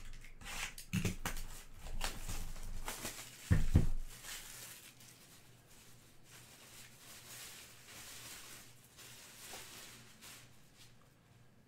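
A cardboard trading-card hobby box being handled: a few knocks and rustles, then a double thump about three and a half seconds in as it is set down on the table, followed by faint scattered rustling.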